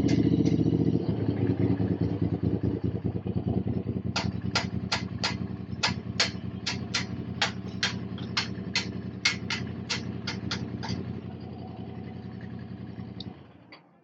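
Motorcycle engine idling, a little louder in the first second, then switched off near the end. A quick run of sharp clicks, nearly three a second, sounds over it for several seconds in the middle.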